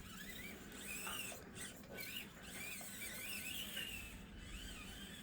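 Faint, high-pitched whine of an Axial SCX24 micro crawler's small electric motor, rising and falling in pitch as the throttle is worked.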